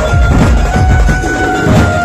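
Dhumal band playing: loud drum beats with a melody of held notes over them.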